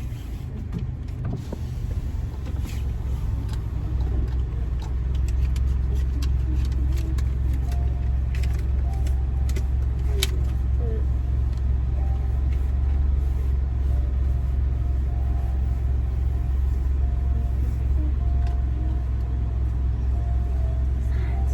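Steady low rumble of a car's engine and running gear heard from inside the cabin, growing a little louder about five seconds in, with a few faint clicks.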